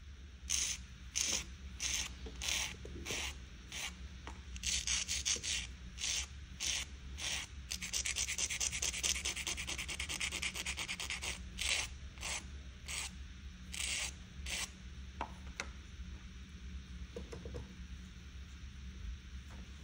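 Nail file scraping across a fingernail in separate strokes, a little under two a second. In the middle the strokes run fast and close together for a few seconds, then separate strokes resume. There are a few faint clicks near the end.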